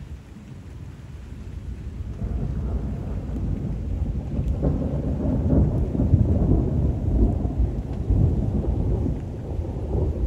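Long rolling rumble of thunder that builds over the first few seconds and is loudest in the second half, with steady rain falling throughout.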